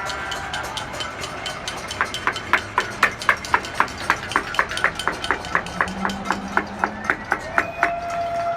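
Rhythmic banging, about four sharp ringing strikes a second, starting about two seconds in: noise-making to cheer for health care workers. Sustained tones sound at the start and near the end.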